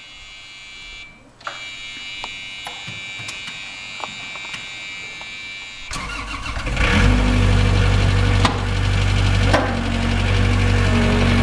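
A steady high warning tone sounds for about six seconds, then a skid-steer loader's engine cranks, catches and runs steadily and loudly.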